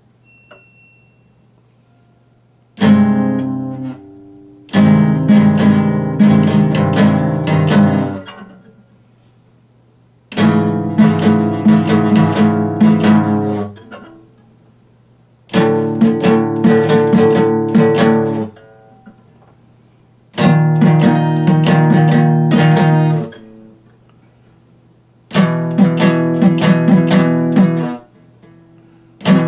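Epiphone acoustic guitar strummed in short passages of chords, each lasting two to four seconds, separated by pauses of a second or two.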